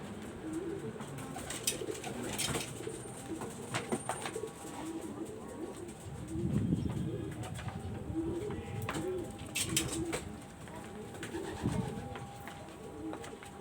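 Pigeons cooing repeatedly, with scattered sharp clicks and a louder low rustling patch about halfway through.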